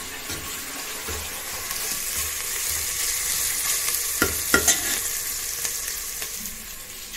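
Chopped onions sizzling as they fry in an open pressure cooker while being stirred with a metal ladle. The ladle knocks against the pot a few times about four seconds in.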